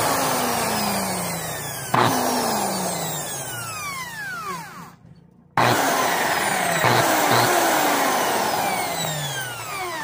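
Lutos corded impact drill's electric motor test-run at no load: it whines at speed and slows with a falling pitch as the trigger is let off, is squeezed again at about two seconds, winds down almost to silence about five seconds in, then starts sharply and runs again. The drill, which had no power, now runs on its repaired trigger switch with cleaned contacts.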